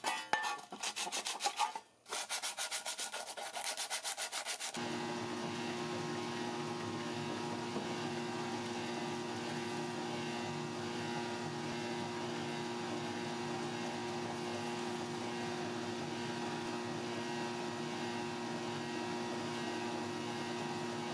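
Quick back-and-forth strokes of sandpaper rubbing on the steel body of a toy truck cab. About four to five seconds in, it gives way to a steady hiss with a constant low hum as a powder coating gun sprays powder onto the cab.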